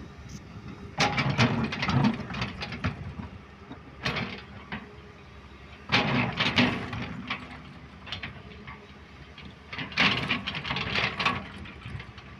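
Excavator at work: its diesel engine runs steadily under repeated bursts of clattering and scraping, about a second, four, six and ten seconds in, as the bucket digs and loads spoil into a tipper truck.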